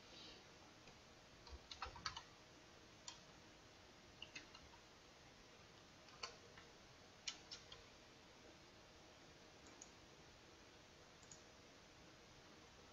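Faint, scattered clicks of a computer keyboard and mouse: a handful of keystrokes and mouse clicks, a few in quick clusters, against near silence.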